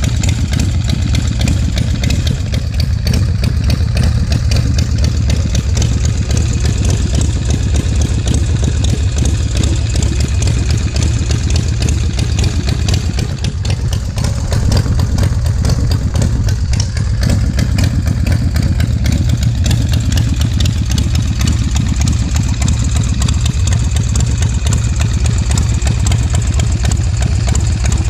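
The V-twin engine of a 2013 Bourget Fat Daddy chopper idling steadily with an even, low exhaust beat.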